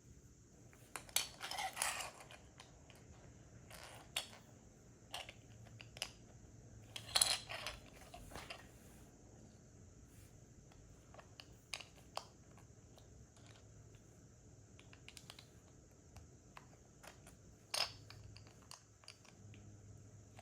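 Small plastic Lego pieces clicking and rattling as they are handled and pressed together: two short flurries of rattling, about a second in and about seven seconds in, then scattered single clicks.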